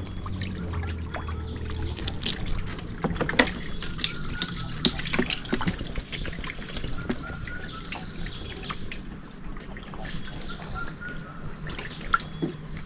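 Water trickling and splashing, with scattered small knocks and clicks from handling a baited set line over the river.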